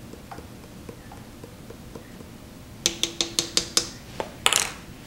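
Measuring spoon tapped against the rim of a stand mixer's metal bowl to knock off spice: a quick run of about eight light clicks with a faint ring, then one short rustle.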